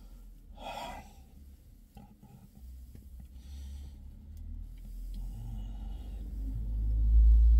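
A person drinking from a plastic bottle, with a breathy exhale about a second in and soft swallowing and breathing. A deep rumble builds to the loudest point near the end.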